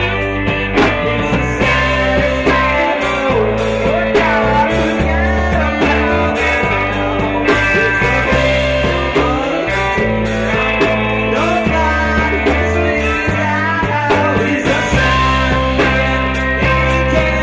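Live rock band playing a song, with a man singing over guitar, a steady bass line and regular drum and cymbal hits.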